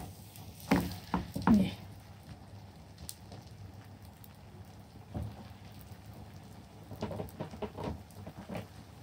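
Uncooked aloo paratha laid onto a hot oiled frying pan, with two knocks about a second in. Then oil sizzles and crackles in scattered pops under the flatbread.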